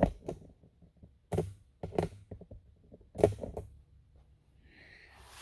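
A few short knocks and clicks in small irregular clusters, roughly a second apart, with quiet between them.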